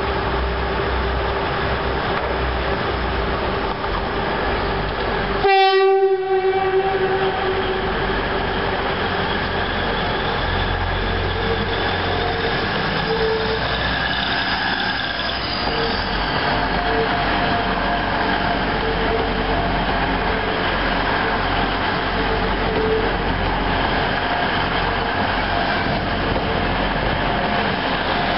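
Grand Central Class 180 diesel multiple unit pulling out under power, its underfloor diesel engines running as the cars pass close by. A loud horn blast comes about five and a half seconds in.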